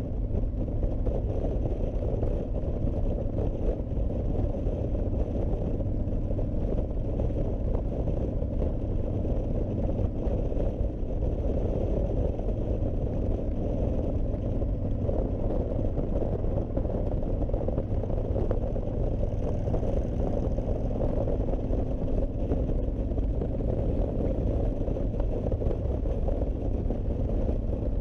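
Honda VTX1300C's V-twin engine running steadily as the motorcycle cruises, under a constant low roar of wind and road noise.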